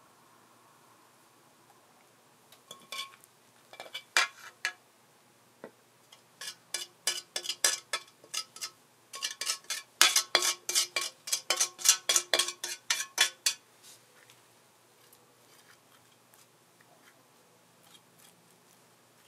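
Metal utensils clicking and clinking against a dish in a quick, irregular run of taps, about three or four a second. The taps start a few seconds in and stop a few seconds before the end.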